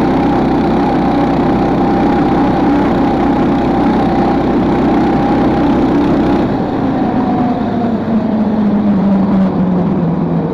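The Lifan KP460 engine of a homemade motorized snow tow, fitted with a PZ30 carburettor, running hard under load at cruising speed. About six seconds in, its pitch falls steadily as the throttle eases and the tow slows.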